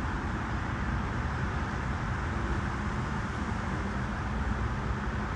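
Steady low rumble of vehicle noise with a faint hum, even throughout and without distinct events.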